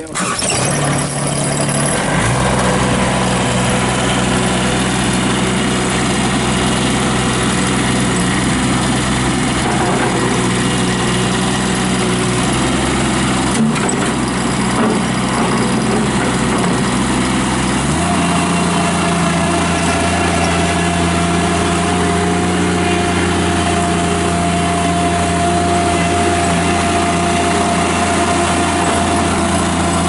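Toro Dingo TX525 mini skid steer's diesel engine starting up and catching at once, then running steadily as the machine moves about. About eighteen seconds in, the engine note shifts and a steady whine joins in.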